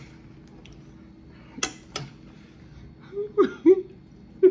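Two sharp clicks of a fork against a plate, then a woman's short bursts of laughter near the end.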